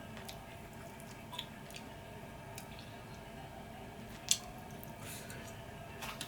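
Close-up eating sounds of chicken wings being chewed: soft, wet squishy clicks and mouth smacks, with one sharper click about four seconds in.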